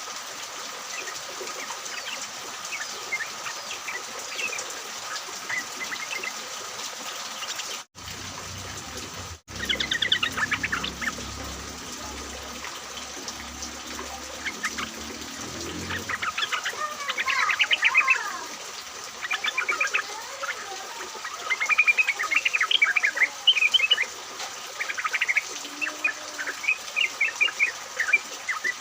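Yellow-vented bulbuls chattering in short bursts of quick chirping notes, sparse at first and busier and louder from about ten seconds in, over a steady background hiss.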